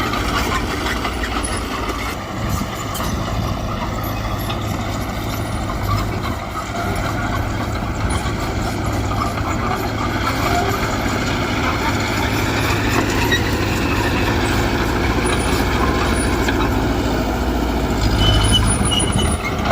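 Heavy diesel engine of earthmoving machinery running steadily, its pitch rising and falling once about two-thirds of the way through.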